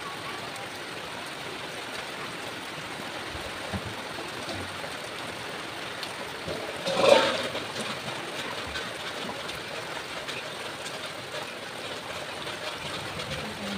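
Steady rushing of water, with one brief louder noise about halfway through.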